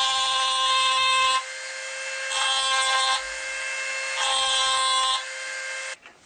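A small electric power tool whines steadily as it works a piece of wood. Three times, for about a second each, it grows louder and rougher as the bit bites in, then eases off. The sound cuts off suddenly near the end.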